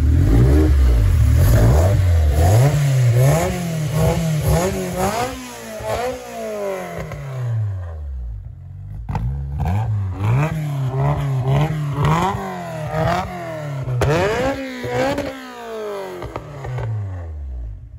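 Freshly built Honda VTEC engine revved over and over with quick throttle blips, its pitch rising and falling back each time, with a short lull about eight seconds in. The exhaust is deep and loud ("rowdy"), on an engine whose tune is not yet finished.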